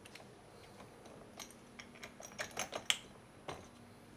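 A scatter of light clicks and taps as screws are driven and the metal parts of a Viair 12-volt air compressor are handled during reassembly, thickest between about one and a half and three seconds in.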